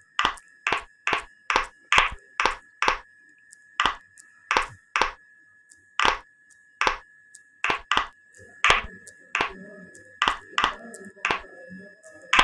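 A fast, uneven series of sharp clicks, about two to three a second, over a steady high tone. Faint murmuring starts underneath about two-thirds of the way in.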